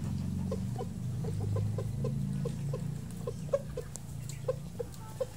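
Chicken clucking: a run of short clucks, about three or four a second, over a steady low hum that fades toward the end.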